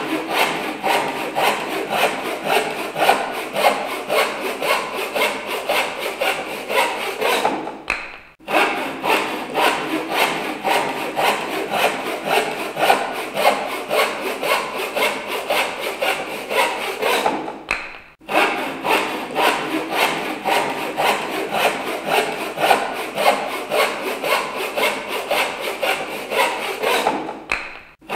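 Hand saw cutting with steady back-and-forth strokes, about two a second. The sawing stops twice briefly and starts again.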